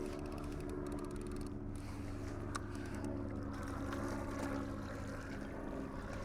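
A steady low mechanical hum of a few even tones over a soft hiss of wind and water, with no distinct events.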